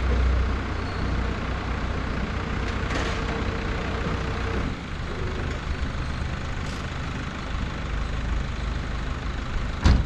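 Flatbed tow truck's engine running with a low, steady hum while a car is loaded onto its tilted bed. A thin steady whine stops a little under halfway through, and a single sharp knock comes just before the end.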